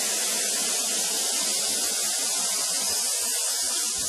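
Steady hiss of compressed air escaping from the air-fed rigging under a heavy steel sculpture plate.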